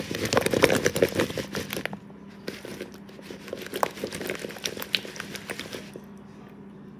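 Raw potato cubes tossed and shaken in a plastic bowl, rattling and knocking against the sides in two spells: a loud burst for about two seconds, then a lighter one that stops about six seconds in.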